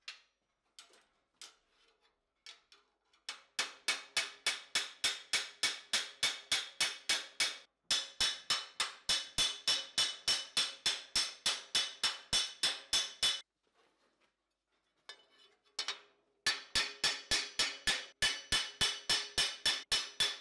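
Small steel hammer striking the edge of a steel cuirass plate held over a metal stake, rapid ringing blows about four or five a second. The blows come in runs: they start about three seconds in, pause briefly near eight seconds, stop for about three seconds from a little past thirteen seconds, then start again.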